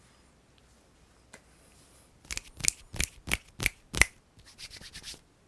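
Close-miked ASMR hand sounds: about six sharp strikes roughly three a second, then a quick run of softer ones near the end.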